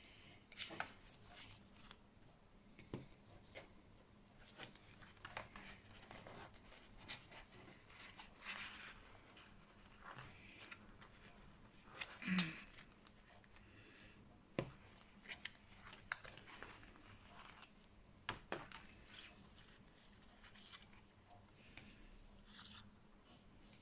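Handling of plastic packaging: a clear plastic sleeve rustling and crinkling, with scattered light clicks and taps of plastic craft pieces, and one louder bump about halfway through.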